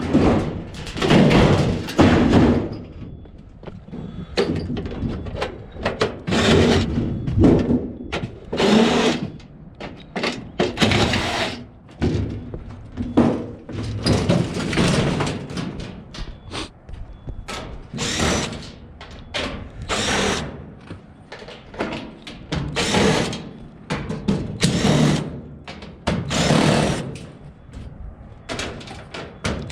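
Irregular series of loud thunks and scraping noises, one every second or two, from heavy objects being handled.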